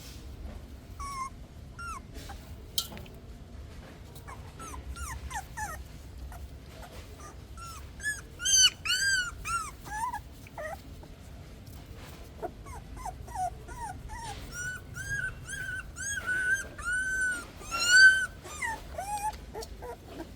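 Newborn puppies whimpering and squeaking: many short, high-pitched cries in clusters, loudest near the middle and again toward the end.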